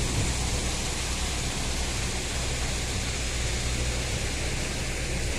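A steady low hum under a constant even hiss, with no change throughout.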